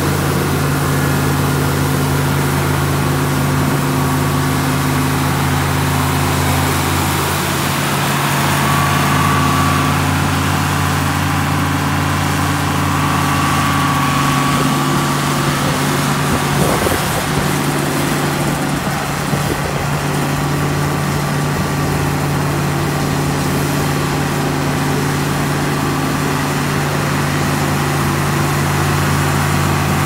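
Steady diesel engine drone of farm machinery harvesting wheat, with an International 1420 axial-flow combine running close alongside. It holds an even low pitch throughout, with a brief wavering a little past halfway.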